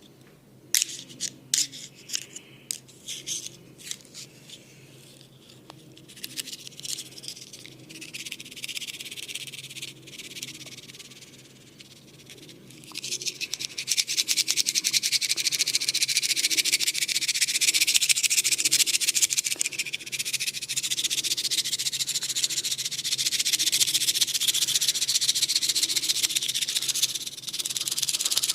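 Close-up massage sounds: a run of sharp taps and clicks, then from about halfway a loud, fast, steady scratching and rubbing, as of hands or a tool working over hair and skin.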